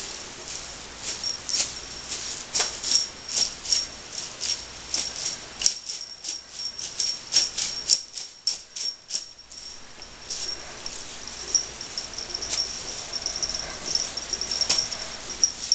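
Crinkly tinsel streamers of a cat teaser wand swished quickly back and forth through the air, a rustle at about two or three swishes a second that thins out after about ten seconds.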